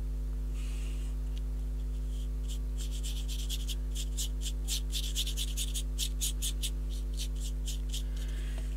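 Quick rubbing strokes across paper, about four or five a second for around four seconds in the middle: pigment powder being worked onto freshly stamped, tacky letters. A steady electrical hum runs underneath.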